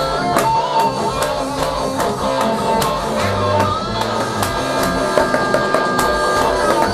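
Rough multitrack playback of an electronic drum kit and electric guitar recorded straight into a computer's onboard sound card. Steady drum hits run under sustained guitar notes, loosely played and a little jumbled rather than a coherent song.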